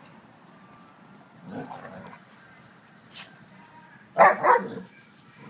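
Vizsla barking twice in quick succession about four seconds in, after a softer dog sound about a second and a half in.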